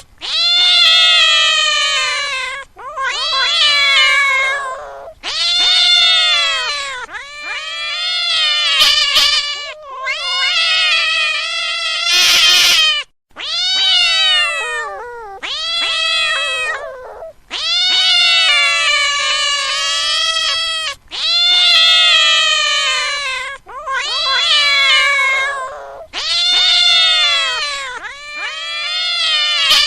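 Cat meowing loudly over and over: about a dozen long, drawn-out meows, each about two seconds long and rising and falling in pitch, one after another with only brief breaks between them.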